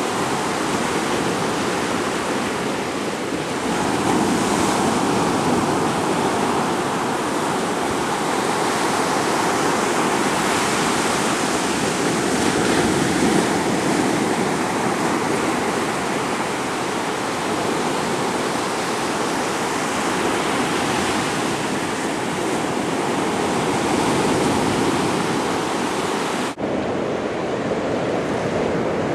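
Small waves washing up and draining back over a sandy beach, a steady wash of surf. Near the end it breaks off for an instant and continues a little duller.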